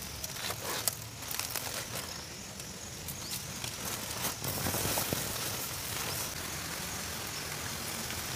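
Aluminium foil crinkling, with a few sharp clicks, as foil-wrapped mutton ribs are handled on a metal grill grate. A steady outdoor hiss with a faint high drone runs under it.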